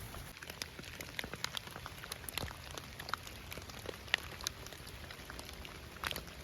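Rain falling: many separate drops ticking at irregular times over a soft steady hiss, with a few louder drops near the end.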